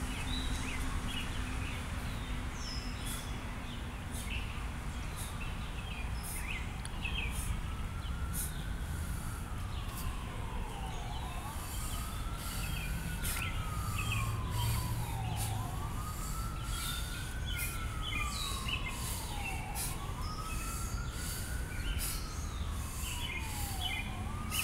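An emergency-vehicle siren in a slow wail, rising and falling about every four seconds, starting about a third of the way in. Birds chirp throughout over a steady low rumble.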